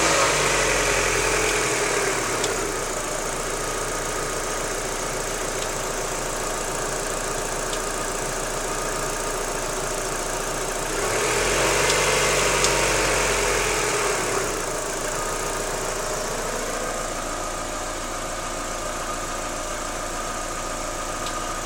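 Daewoo Lanos 1.6 16V four-cylinder petrol engine with an extraneous knock, revved briefly, settling to idle about two seconds in, then revved again from about eleven to fourteen seconds before dropping back to idle. The knock went away once the timing belt and its idler rollers were replaced, though the removed parts showed nothing suspicious.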